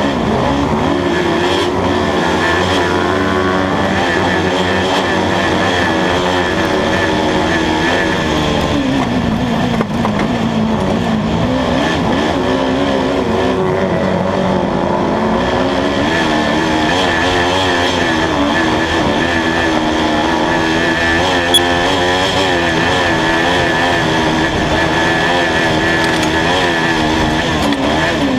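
Kart-cross car's Honda 500 cc motorcycle engine, heard from on board while racing on dirt, its revs rising and falling again and again. A single sharp click about three quarters of the way through.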